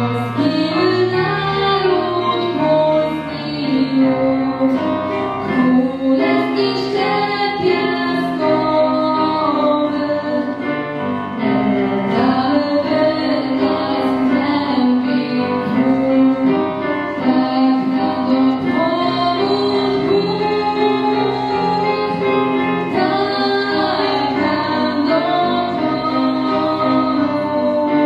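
A young woman singing a song solo into a handheld microphone over the hall's sound system, with instrumental accompaniment, continuously.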